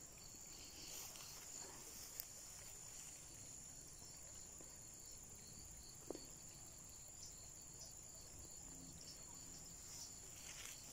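Faint, steady insect chirring with a high, evenly pulsing trill. A single soft click about six seconds in.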